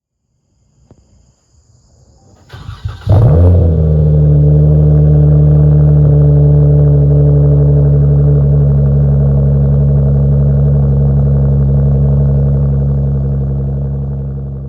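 Dodge Charger's 3.6-litre V6 starting: it cranks and catches about three seconds in with a short rev flare, then settles into a steady, deep idle through an X-pipe and aftermarket mufflers. The sound fades away near the end.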